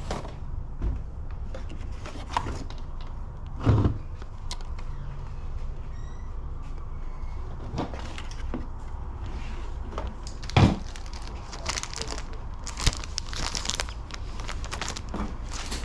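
Things being handled on a table of toys and magazines: a few knocks and bumps as items are moved, then crinkling of clear plastic magazine sleeves near the end, over a steady low background noise.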